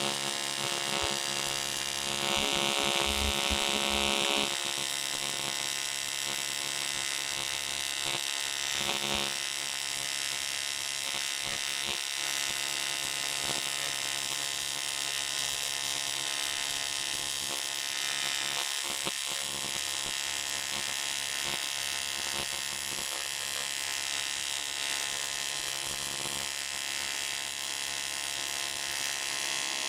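AC TIG welding arc on aluminium buzzing steadily, louder for a couple of seconds shortly after the start.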